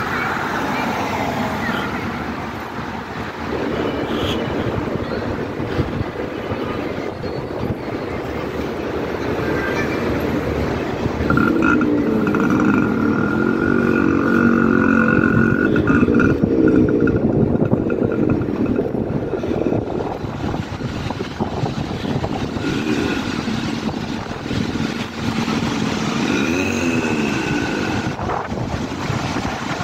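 A car drives past close by at the start, over constant outdoor street noise with a heavy low rumble. From about 11 to 17 seconds a steady pitched engine hum joins in.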